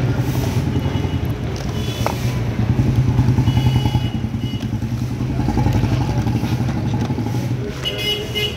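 An engine running steadily close by, a low, fast-pulsing hum, with a light click about two seconds in.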